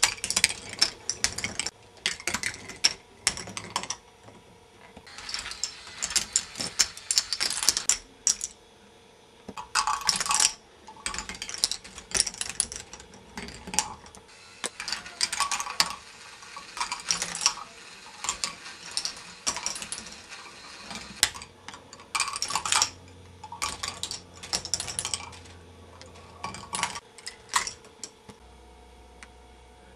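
K'nex ball machine running: plastic balls clicking and rattling along the tracks and lifts in uneven clusters of rapid clicks, over a faint steady hum. The clatter stops about two seconds before the end.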